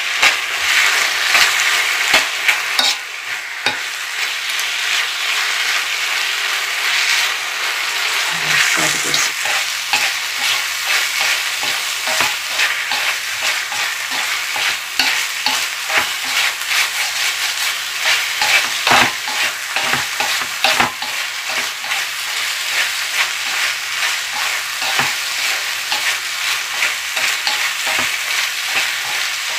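Tuna kimchi fried rice sizzling in a heated frying pan as it is stir-fried with chopsticks and a spoon: a steady frying hiss with frequent clicks and scrapes of the utensils against the pan.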